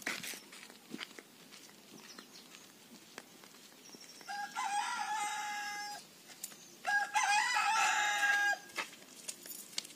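Rooster crowing twice, each crow about a second and a half long and held on a steady pitch after a short rise, the first about four seconds in and the second a second later.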